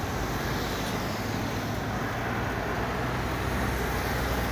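Steady road traffic: cars driving past on a street.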